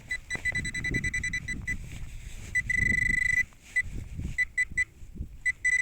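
Metal-detecting pinpointer beeping in quick pulses that speed up into a steady tone about three seconds in, and again near the end, as it closes on a buried metal target in the dug soil. Low scuffing of soil being handled runs underneath.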